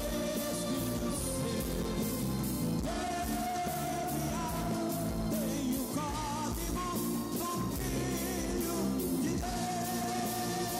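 Live gospel band performing: singing with backing vocals and long held notes over guitars and a steady beat.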